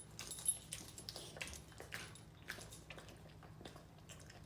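A dog chewing a cookie treat, with faint, irregular wet smacking clicks.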